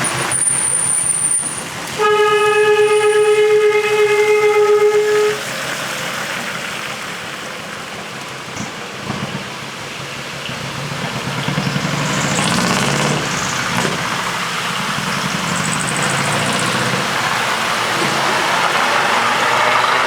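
A truck's air horn sounds one long steady note about two seconds in, lasting about three seconds, over the running noise of trucks driving past.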